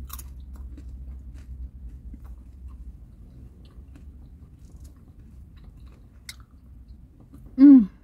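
Close-up chewing and biting of fried chicken, soft and wet, with a few faint clicks. Near the end comes one short, loud cry that falls in pitch.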